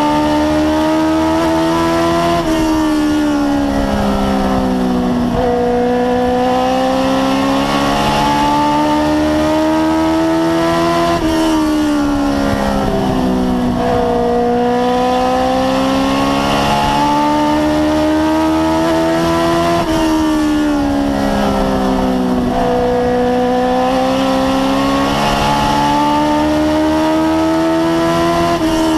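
Race car engine at full race speed, heard from inside the cockpit. Its pitch climbs steadily, then drops sharply roughly every nine seconds as the car lifts off for the turns and accelerates out again.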